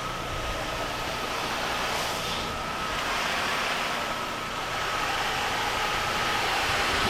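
Pressure washer running with water spraying steadily from the wand's tip, a continuous hiss with a thin steady whine, as the downstreamed soft-wash soap mix works its way through the hose to the tip.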